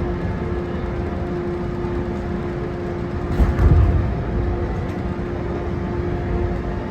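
415 series 1500 electric multiple unit running, a steady rumble with a held hum, swelling into a heavier low rumble about three and a half seconds in.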